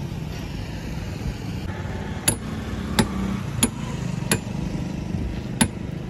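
Hammer striking steel under the SUV's sill, five sharp ringing blows from about two seconds in, roughly one every two-thirds of a second with a short pause before the last, over a steady low rumble. The blows are knocking at the rusted side-step mounts.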